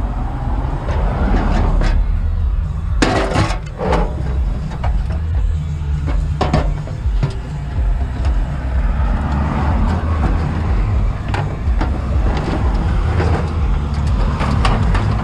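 Metal knocks and clanks as a barbecue is taken apart and shoved into a truck bed, with a sharp cluster of knocks about three seconds in. A steady low vehicle rumble runs underneath.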